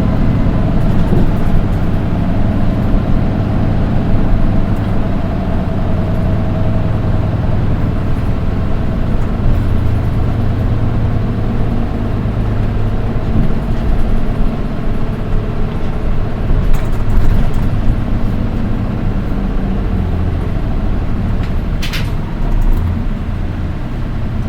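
Inside a Nissan Diesel Space Runner RM820 city bus: the diesel engine and drivetrain running steadily, with a high-pitched tone over the engine hum that fades within the first several seconds; the uploader says this bus alone among its RM820s gives a shrill engine sound. A short hiss comes near the end.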